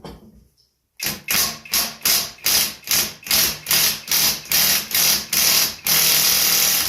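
Power impact wrench hammering at a stubborn, seized bolt, triggered in short bursts about two and a half times a second, then held on for about a second before it stops abruptly.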